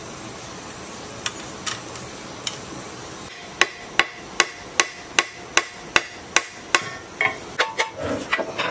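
A hammer striking the metal end housing of an old generator: about nine sharp, evenly spaced blows, roughly two and a half a second. They are followed by lighter, irregular metal clanks with a brief ring as the loosened end housing shifts.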